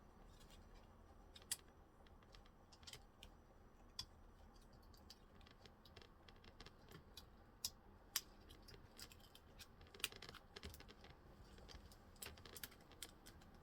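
Faint, irregular small clicks and taps over near silence: tweezers and a flat ribbon cable being worked into a laptop's keyboard connector.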